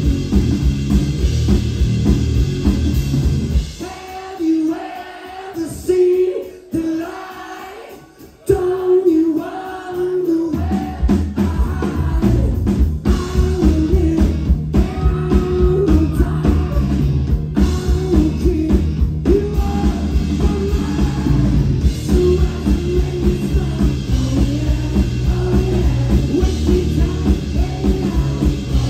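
Live indie rock band playing loud through a venue PA: drum kit, bass guitar and electric guitar with singing. About four seconds in the drums and bass drop out, leaving the singing over a thinner backing. The full band comes back in about ten seconds in.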